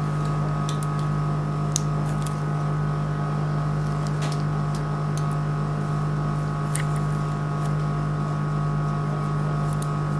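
Steady electrical hum of surgical equipment in a veterinary operating room, a low drone with fainter higher tones held at an even level, broken only by a few faint clicks.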